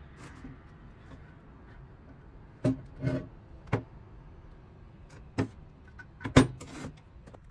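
A planed wooden board knocking against a table saw's metal top as it is handled and turned over: about six short knocks, the loudest near the end.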